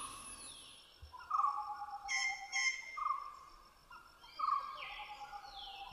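Short whistled animal calls, each about a third of a second long, repeating roughly every second and a half, with a few falling whistles in between.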